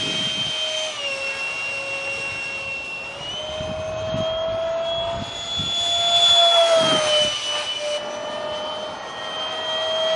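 A 70mm electric ducted fan on a foam RC flying-wing jet, running at high throttle as a steady, loud high-pitched whine. Its pitch dips about a second in, climbs back after about three seconds, dips again around seven seconds and rises near the end.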